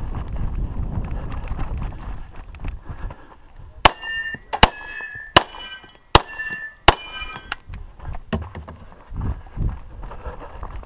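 Five pistol shots in a steady string about three-quarters of a second apart, each followed by a brief metallic ring from a steel target being hit. Before the string there is scuffing movement noise.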